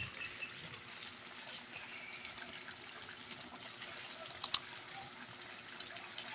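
Meat and vegetables simmering in sauce in a wide steel wok: a steady, soft bubbling hiss. Two sharp clicks close together about four and a half seconds in.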